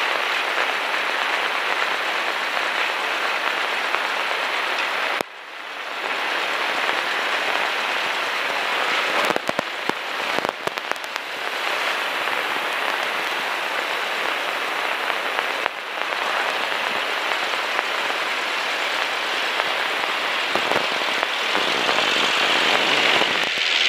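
Steady rushing hiss of propeller wash and wind over a camera mounted on the cowling of a small single-engine propeller plane rolling on the runway. A few short knocks come about ten seconds in.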